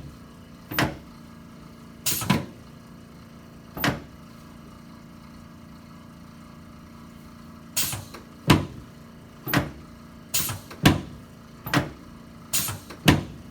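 Chiropractic adjustment of a patient's back while he lies face down: a series of about a dozen short, sharp cracks and knocks from spinal and sacroiliac joints releasing and hands thrusting on the table, a few spaced out at first and then in quick succession in the second half, over a faint steady hum.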